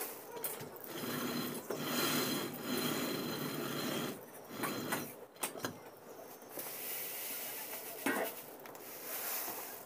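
Hand-turned stone mill (chakki) splitting whole moong into dal: the upper stone grinds round on the lower one with a steady rasping, stone-on-stone rub. There are a few brief breaks.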